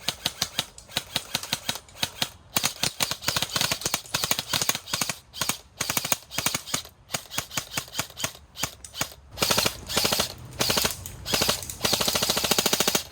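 Airsoft guns firing: quick strings of sharp shots throughout, turning into long, rapid full-auto bursts near the end.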